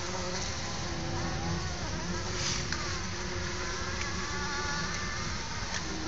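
Bumblebees buzzing in their nest: several overlapping wing hums that drift up and down in pitch, with a brief sharp tick about two and a half seconds in.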